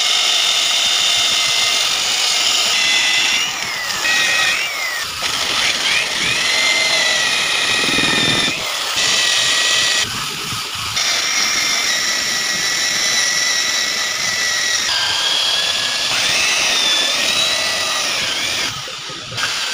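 Corded electric hand drill running as it bores into wood, a steady whine that sags and rises in pitch as the bit bites and frees. It stops and restarts briefly a few times.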